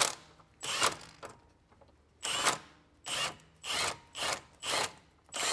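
Hand ratchet loosening the nut on a control arm's cross-member bolt: a run of about seven short ratcheting clicks on the back strokes, quicker in the second half at roughly two a second.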